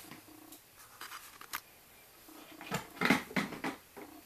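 Clear plastic tub being slid out of a rack and handled: scattered plastic knocks and scrapes, loudest about three seconds in.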